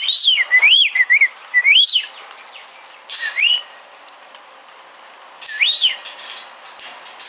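Pet rainbow lorikeet whistling and chirping: a quick run of rising-and-falling whistled notes in the first two seconds, then single whistles about every two seconds, some with a harsh, screechy edge.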